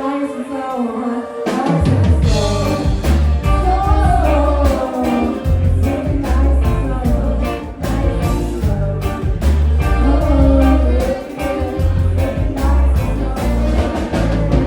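Live rock band playing a song with singing. After a sparse opening, the drums and bass guitar come in about two seconds in and the full band carries on.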